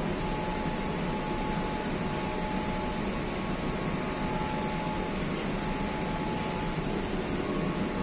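Steady interior noise of a metro train coach, an even rush with a faint thin whine for the first few seconds.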